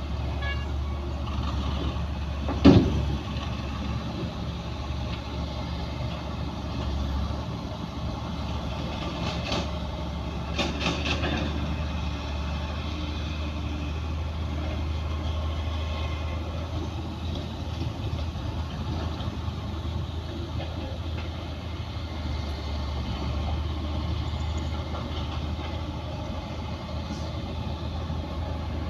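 Heavy diesel engines of earthmoving machinery running steadily, with one sharp bang about three seconds in and a short burst of clanking around ten seconds in.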